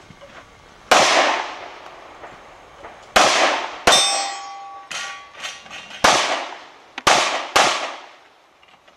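Handgun fired six times at uneven intervals, each loud crack trailing off in a long echo, with a few fainter cracks in between. A metallic ring follows the third shot.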